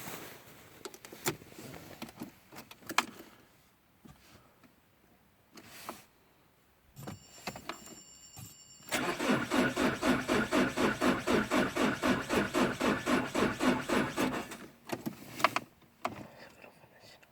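Renault Clio's starter motor cranking the engine in an even, rapid rhythm for about six seconds without the engine catching: a no-start after a battery replacement. Before it come a few clicks and a brief high electronic tone, and a couple more clicks follow.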